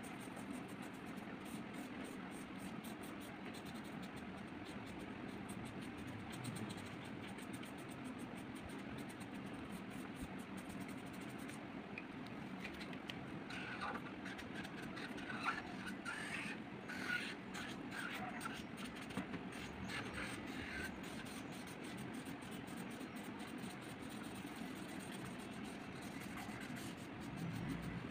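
Colouring strokes scratching and rubbing across paper, over a steady low background hum. A few short, high chirps come through about halfway through.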